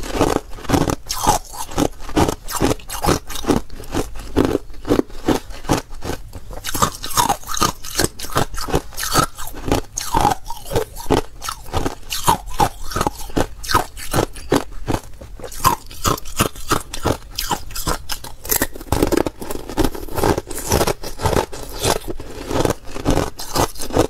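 Thin, clear ice being bitten and chewed close to the microphone: a continuous run of sharp, brittle crunches, several a second.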